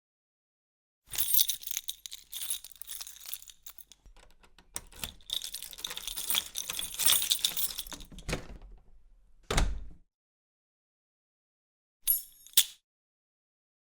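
A bunch of metal keys jangling and clinking, shaken and handled from about a second in to about ten seconds, with a dull thump near the end of that stretch as they are set down or dropped. After a gap, a short jingle of the keys comes again.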